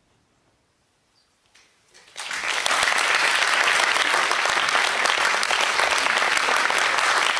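Near silence for about two seconds, then a few first claps and a theatre audience bursts into loud, sustained applause.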